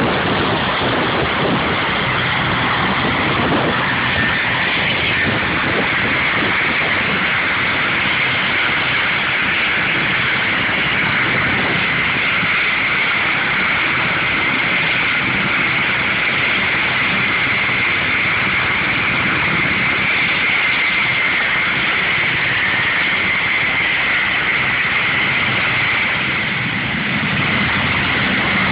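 Royal Air Force Merlin helicopter running close by: the loud, steady rush of its rotors with a high turbine whine over it. Near the end a deeper rotor beat grows as it lifts off.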